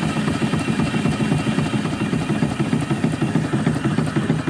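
Small multi-cylinder vertical steam engine running steadily under light steam, a rapid, even beat of exhaust and valve gear with mechanical clatter.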